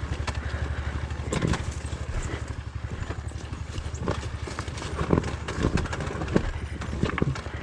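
Honda CRF125F's air-cooled single-cylinder four-stroke engine running at low revs with an even, rapid pulse as the bike creeps downhill, with scattered knocks and clicks from the tyres and chassis over the rough trail.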